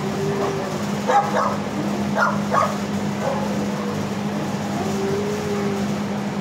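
Dogs barking in a shelter kennel block: a few sharp barks about a second in and a couple more around two and a half seconds, with two long, level drawn-out dog calls, over a steady low hum.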